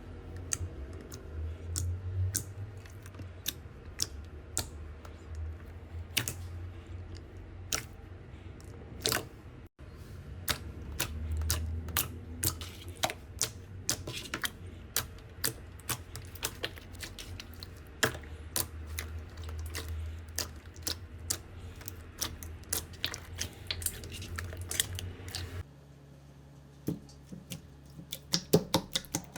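Slime being pressed and worked by hand, giving off irregular crisp clicks and small pops over a low steady hum. Near the end the hum stops and the clicks go on against a quieter background.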